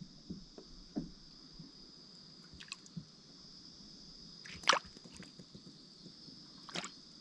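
Small drips and sloshes of water beside a boat as a prawn is caught from the water, with a few sharp clicks and knocks, the loudest a little past halfway. A steady high-pitched hiss runs underneath.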